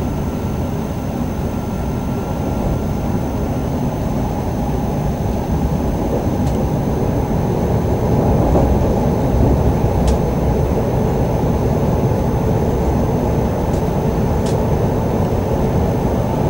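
Running noise of a moving passenger train heard from inside the carriage: a steady rumble that grows a little louder about halfway through, with a faint steady high whine and a few light clicks.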